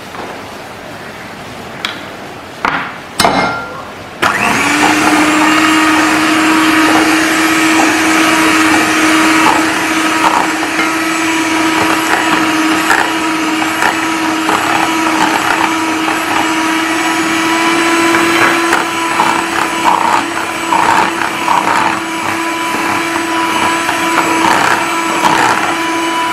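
A few knocks, then about four seconds in an electric hand mixer switches on. It runs at a steady pitch, its beaters whisking brownie batter of melted butter and sugar in a bowl with scattered clicks.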